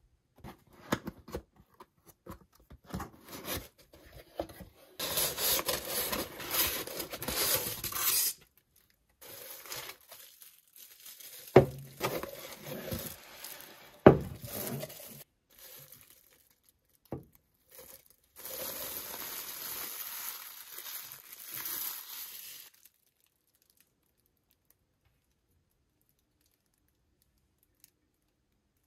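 Unboxing sounds: a cardboard box being opened and the plastic bags around ceramic mugs crinkling and tearing, in two longer spells of rustling, with two sharp knocks in the middle as the mugs are handled. The last several seconds are near silent.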